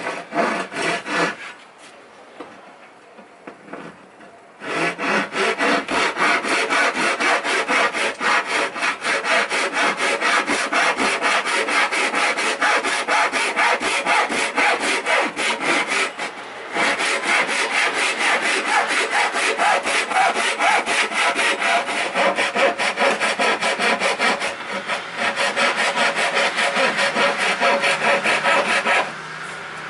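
A hand tool worked on wood in fast back-and-forth strokes, a few strokes a second. There is a short burst of strokes at the start, then a pause of about three seconds, then a long steady run that breaks off twice briefly and stops shortly before the end.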